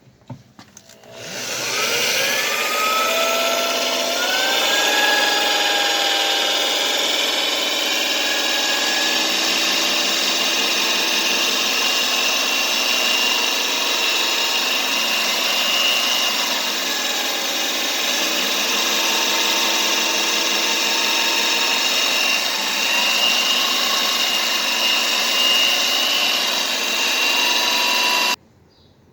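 Electric power drill running continuously. Its pitch climbs as it spins up at the start, then it runs steadily with small changes in speed and stops abruptly near the end.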